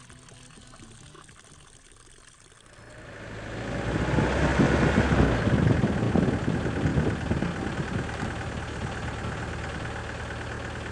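Car engine. It is faint at first, rises about three seconds in as the car comes up close, then runs steadily at low speed.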